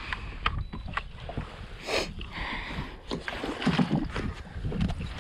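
A hooked fish thrashing and splashing at the water's surface beside a boat while it is reeled in, with a sharp rush of splash about two seconds in and scattered clicks. Wind buffets the microphone throughout.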